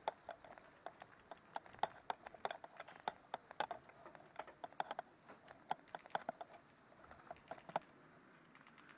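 Footsteps: a quick, irregular run of light clicks and crunches.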